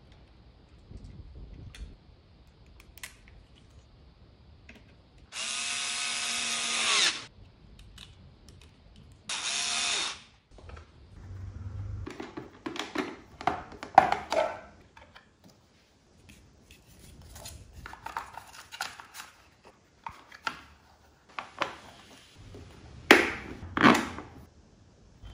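A power drill runs in two short bursts: the first about two seconds long, with a whine that rises slightly, the second under a second. After them come a string of sharp clicks and knocks as plastic parts on the generator's frame are handled and the battery cover is fitted.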